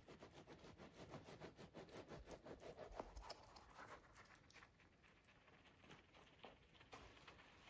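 Near silence with a faint, dense patter of tiny clicks, thickest in the first four seconds and thinning after.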